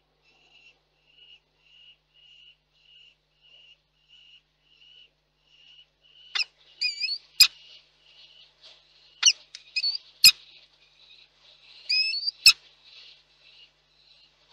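Peregrine falcons calling at the nest. First comes a run of soft, evenly repeated notes, about one and a half a second. From about six seconds in come louder wavering calls, broken by several sharp knocks.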